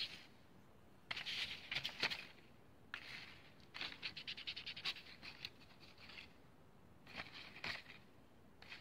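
A glue brush scratching and dabbing paste onto a sheet of paper in several short bursts of quick strokes, with brief pauses between them.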